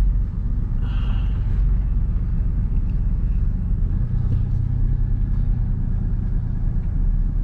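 Truck running at low speed, heard from inside the cab as a steady low engine and road rumble.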